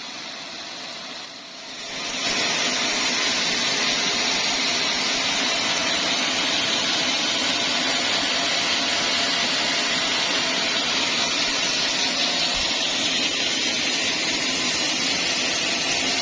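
Band sawmill sawing a dried teak log. The machine's engine hum swells about two seconds in, as the blade comes into the cut, then holds a loud, steady hissing whine.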